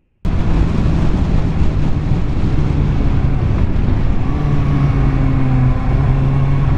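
Sport motorcycle engine running while being ridden, picked up by a camera on the bike. It cuts in abruptly just after the start, with a steady engine hum coming through more clearly after about four seconds.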